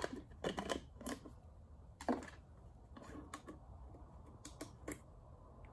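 Pocket screwdriver slicing the foil seal in the neck of a plastic motor-oil jug, cutting it only partway, then the jug being handled: a few faint, scattered scratchy clicks and scrapes.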